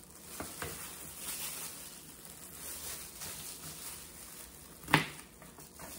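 A knife cutting through raw chicken wing joints on a cutting board: faint rustling and a couple of light taps, then one sharp knock of the blade on the board about five seconds in.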